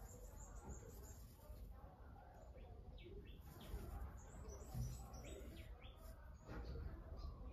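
Faint birds chirping in short, scattered high notes, over a low steady hum.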